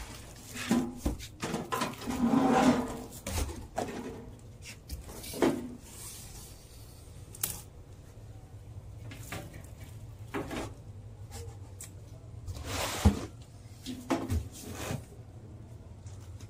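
Handling noise from unpacking a stainless steel deep fryer: plastic wrapping rustling and metal parts knocking against the tank and basket at irregular moments, with one sharper knock about three-quarters through, over a low steady hum.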